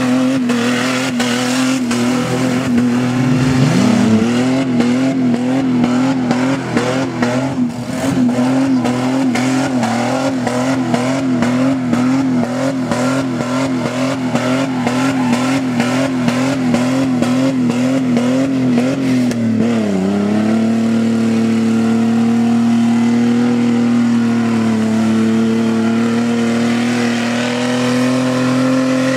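4x4 truck engine revving hard while bogging through a mud pit. Its pitch wavers quickly and regularly up and down for most of the time, dips sharply about twenty seconds in, then holds a steady high rev.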